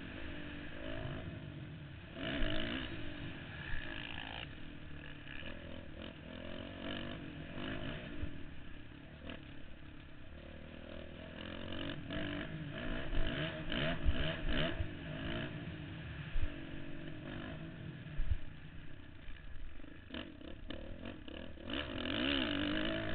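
Motocross bike engine revving up and down continually while being ridden hard round a dirt track, heard through a helmet-mounted camera, with wind buffeting and several sharp thumps.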